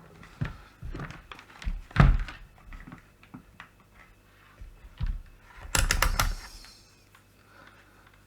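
Scattered clicks and knocks from handling a multimeter and its test probes on a workbench while checking a circuit board for a short. The loudest knock comes about two seconds in, and a quick run of clicks follows around six seconds.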